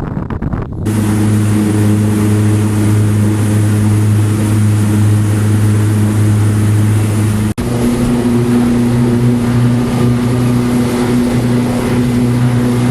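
Motorboat engine running at a steady speed, a constant drone heard on board. After a brief dropout about seven and a half seconds in, the drone carries on slightly higher in pitch.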